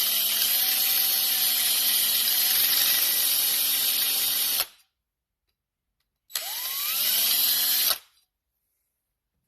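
Electric drill running a bit through a rust-clogged brake pad pin hole in a Honda 600 brake caliper, stopping about four and a half seconds in. After a pause it spins up again with a rising whine, runs for under two seconds and stops.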